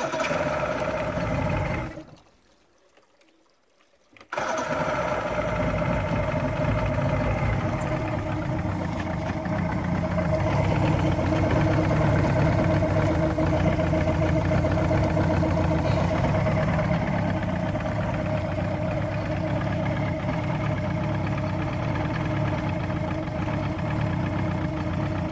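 Johnson V4 two-stroke outboard motor running steadily at idle. The sound drops out for about two seconds near the start, then returns at full level and holds steady.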